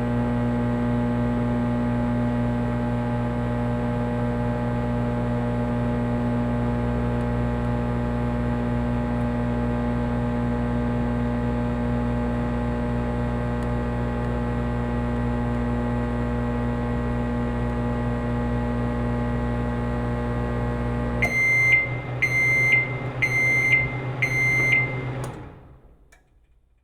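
Microwave oven running with a steady hum, which stops abruptly about three-quarters of the way through. Then come four short, high beeps about a second apart, the signal that the heating cycle has finished.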